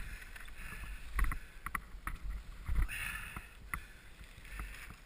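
Air let out of a bike tyre's valve in several short hisses, to lower the pressure for riding on snow, with clicks and bumps of the bike being handled.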